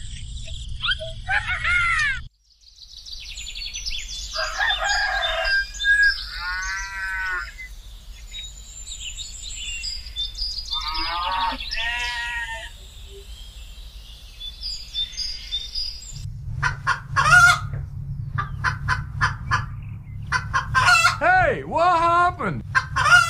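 A rooster crowing twice, then a run of quick clucks near the end, over a low steady hum.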